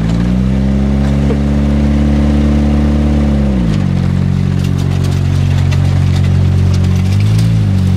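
Engine of a demolition-derby 1991 Honda Civic running under way, its pitch held high, then dropping about three and a half seconds in, as when the driver lifts off or shifts. It stays steady at the lower pitch, with a short rev up and back down near the end.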